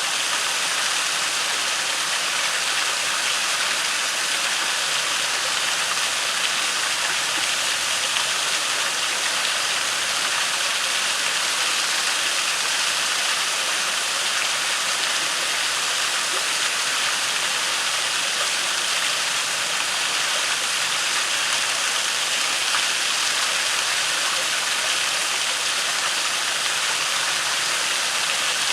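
Waterfall rushing steadily into a creek pool, a constant even hiss of falling water with no change in level.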